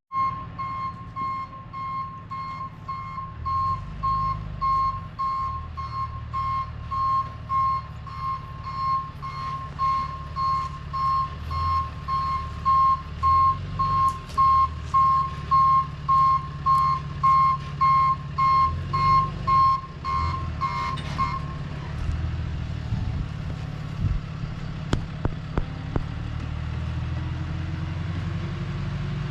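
Vehicle backup alarm beeping steadily, a little under twice a second, over a running engine; the beeping stops about 21 seconds in while the engine keeps running.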